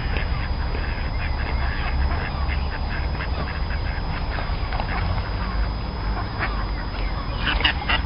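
Waterbirds calling on the water: many short quack-like calls, thickest near the end, over a steady low rumble.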